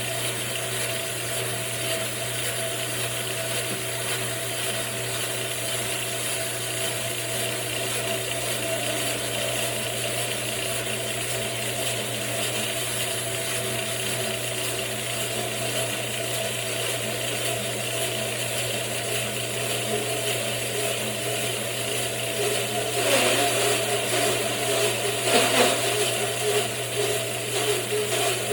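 Homemade bandsaw mill running with a steady mechanical hum, growing louder and more uneven near the end.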